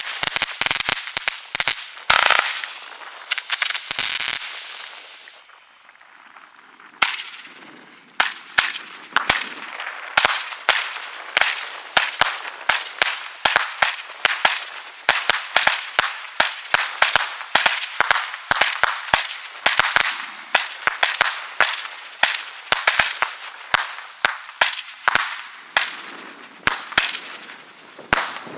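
Consumer fireworks: dense crackling bangs for the first few seconds, then after a short lull a fireworks battery firing shot after shot, about two sharp reports a second, with a hiss between the shots as the red stars rise.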